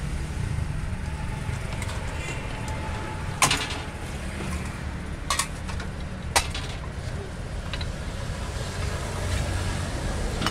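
Street ambience: a steady low traffic rumble, with three sharp knocks in the middle.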